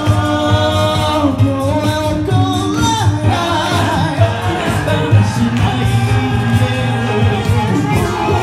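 Two men singing a J-pop song into handheld microphones over recorded backing music, amplified through a PA system.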